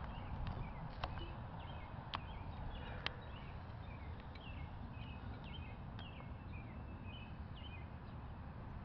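Songbirds chirping in short repeated calls over a steady low rumble, with three sharp clicks in the first few seconds.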